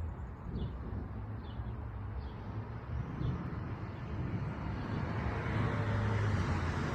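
Outdoor ambience of a low rumble of road traffic, growing louder from about halfway through as a vehicle approaches. Faint bird chirps come about once a second in the first few seconds.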